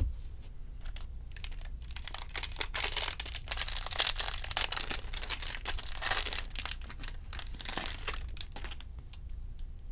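Foil wrapper of a 2020 Topps Series 2 jumbo card pack being torn open and crinkled by hand: a dense crackling that starts about a second and a half in and dies away near the end.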